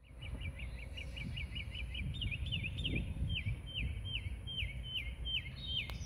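Wind rumbling on the microphone while a songbird sings a quick run of short repeated chirps that slows, about two seconds in, into separate down-slurred notes about two a second.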